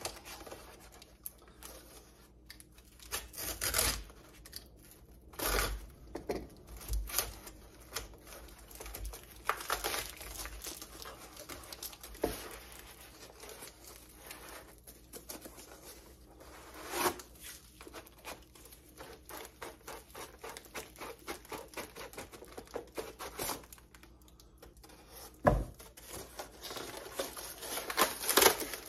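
Cardboard shipping box being cut open with a knife and torn apart by hand: tape and cardboard tearing, scraping and crinkling in many short strokes, with a few sharper knocks, the loudest near the end.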